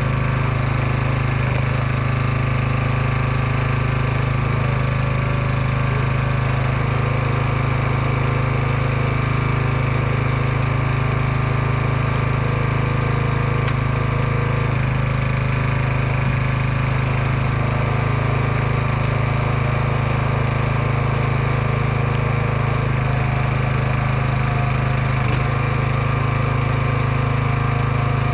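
Small gasoline engine of a log splitter running steadily throughout, its pitch shifting slightly a few times.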